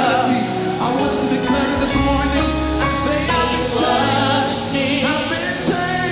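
Church choir singing a gospel worship song over instrumental backing, with held, wavering notes moving from pitch to pitch over a low bass line.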